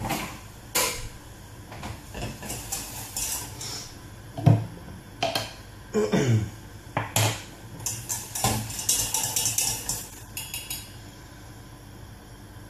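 Metal kitchen utensils clinking and clattering: a small wire whisk being fetched and knocked against a steel saucepan. About nine seconds in comes a quicker run of light metal clicks from whisking.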